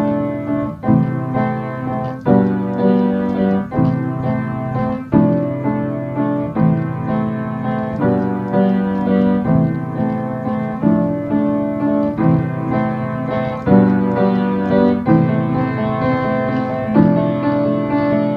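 Solo piano playing a slow piece: chords struck about once every second and a half, each held and fading before the next.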